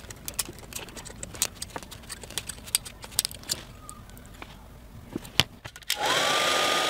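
Small clicks and knocks of side cutters working the battery pack's wires and nickel strips. About six seconds in, a heat gun switches on: a loud, steady rush of air with a motor whine that rises quickly and then holds one pitch.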